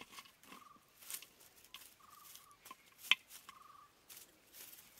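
Hands rustling through dry grass, twigs and leaf litter, with irregular small crackles and one sharper crack about three seconds in. A short buzzy trill repeats every second or two in the background.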